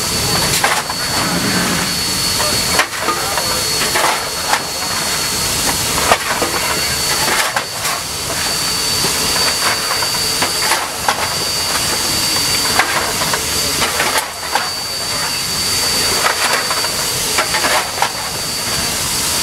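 Steady hiss of steam in a steam locomotive's cab, with a thin high steady tone above it. Scattered sharp clanks, every second or two, come from the fireman's coal shovel at the open firebox door.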